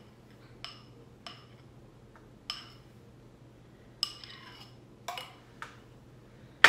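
Utensil clinking against a mixing bowl while batter is scraped out of it: about six light, separate clinks, each with a brief high ring, then a louder knock right at the end.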